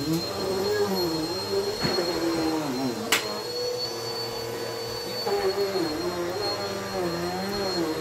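Upright vacuum cleaner running on carpet. Its motor pitch wavers as it is pushed back and forth, holds steady for a couple of seconds in the middle, and there is a sharp click about three seconds in.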